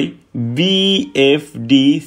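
A man's voice speaking slowly in drawn-out, sing-song syllables.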